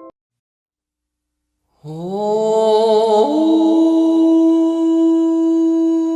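After about two seconds of silence, a single voice enters low, slides upward with a wavering tone, then steps up and holds one long steady note, in the manner of a hummed or chanted Korean vocal line.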